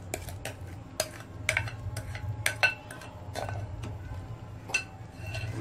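Utensils clinking and scraping against a clear bowl and a steel cooking pot as custard-apple pulp is scraped out of the bowl into the pot: a string of irregular sharp taps over a low steady hum.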